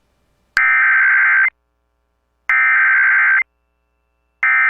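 Emergency Alert System SAME header: buzzy bursts of digital data tones, each just under a second long, repeating about every two seconds. Two complete bursts sound, and a third starts near the end. The bursts carry the coded header that opens an EAS activation, here for a child abduction emergency (AMBER Alert).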